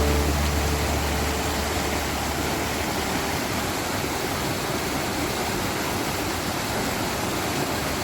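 Mountain valley stream rushing over rocks, a steady even hiss of water. Background music fades out in the first couple of seconds.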